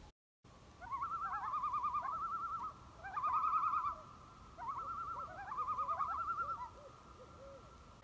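Common loon giving its wavering tremolo call in four quavering phrases, the last ending a little before the close.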